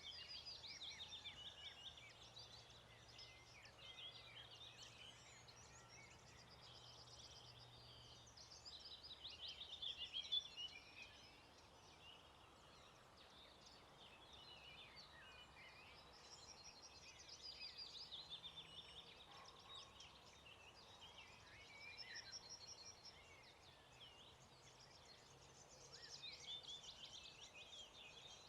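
Faint chorus of several songbirds at dawn, with overlapping rapid trilled phrases repeating every few seconds and a louder flurry of notes about ten seconds in.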